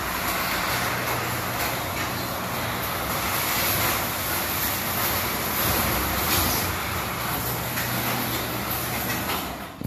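Sectional garage door opening on a LiftMaster 8155 opener: the opener runs and the door's rollers rumble along the tracks in a steady, loud rolling noise with a low hum. The rollers are worn ones that the installer calls terrible.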